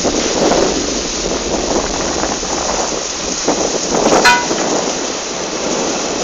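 Heavy rain and strong wind in a sudden storm, a loud steady rush. About four seconds in there is a single short, ringing clink.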